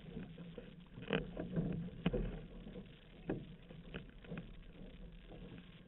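Water splashing around a paddled outrigger canoe: paddle blades entering the water and the hull cutting through chop, with a sharp splash every second or so over a steady wash of water.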